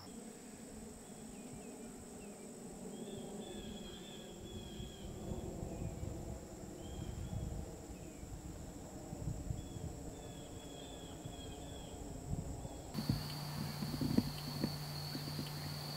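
A horse standing at a wooden fence, its hooves thudding now and then on the ground, with faint short chirps in the background. About three seconds before the end a steady hum comes in.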